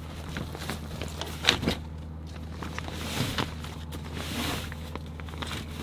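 Rustling and handling noise as a duffel bag and reflective bubble-foil window insulation are moved about inside a pickup's camper shell, with a sharp knock about a second and a half in. A steady low hum runs underneath.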